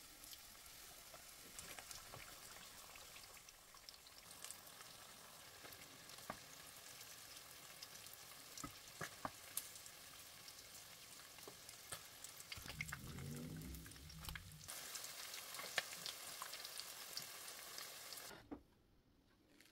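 Spring rolls shallow-frying in hot oil in a non-stick pan: a steady sizzle with scattered crackling pops. A brief low hum sounds about two-thirds in, the sizzle is louder after it, and it cuts off suddenly near the end.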